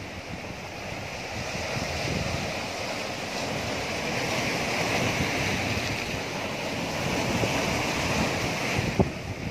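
Sea waves washing and breaking against a rocky shore, swelling louder in the middle, with wind buffeting the microphone. One sharp click near the end.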